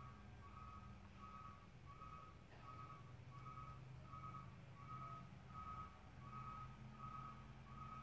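Faint truck backup alarm beeping steadily, about one and a half beeps a second, over a low steady hum.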